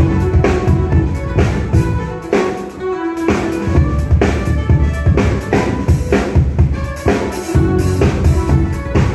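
Live band playing: fiddle and mandolin over a drum kit keeping a steady beat.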